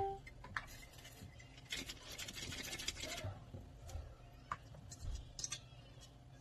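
Drained white kaong (sugar palm fruit) slid from a metal colander into a plastic mixing bowl: a soft rustling scrape about two to three seconds in, then a few light taps. A metallic ring dies away at the very start.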